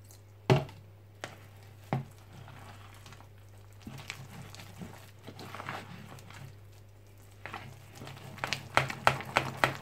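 A metal fork stirring thick fritter batter in a plastic mixing bowl, clinking and scraping against the sides. There are a couple of sharp knocks in the first two seconds, light scattered ticks, then quicker tapping near the end as the mixing speeds up.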